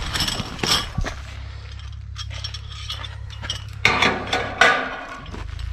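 Metal clinking, clicking and rattling from sheet-metal gutter and clamp work, with two clusters of sharp clinks, over a steady low hum that sets in about a second in.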